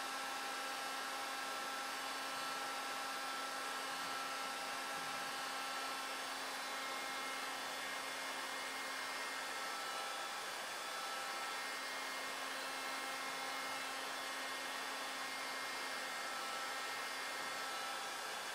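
Steady, even hiss with faint steady hum tones, unchanging throughout.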